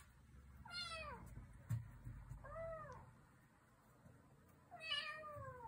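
Kitten meowing three times: a falling meow about a second in, a shorter arched meow in the middle, and a longer falling meow near the end. There is a light knock between the first two meows.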